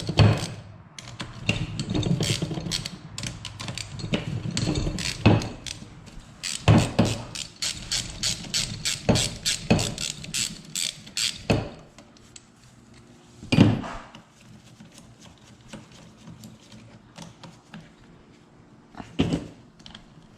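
Socket ratchet clicking as it backs out 12 mm bolts on a Yamaha YZ85 engine's cylinder head, turned in a crisscross order. The clicking comes in runs, fastest and most even at about four clicks a second through the middle, then dies down, with two louder single knocks in the quieter second half.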